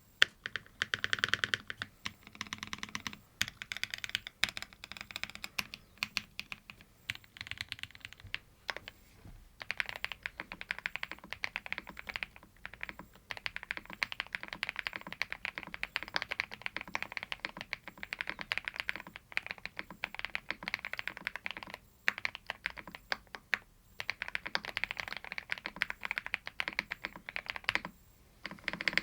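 Mechanical keyboards being typed on: a Mode Sonnet, then a Tiger 80 Lite. A fast, continuous clatter of keystrokes, broken by a few short pauses.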